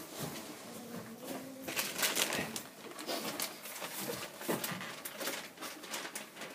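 Chickens making soft, low clucking and cooing sounds, mixed with scattered light clicks and rustles of someone moving about in straw.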